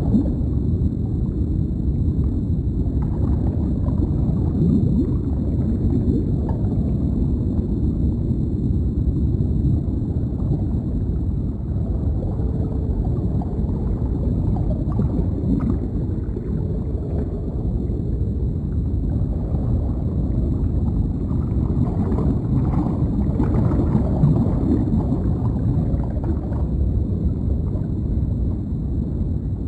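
Deep underwater ambience: a steady low rumble with soft bubbling and gurgling over it.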